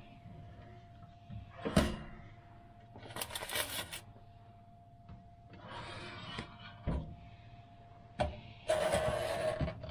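Aladdin toaster oven being loaded: a clunk as the door opens, aluminium foil rustling as the food goes onto the wire rack, and a knock as the door shuts. Near the end the right-hand dial is turned with a loud ratcheting whir, setting the timer.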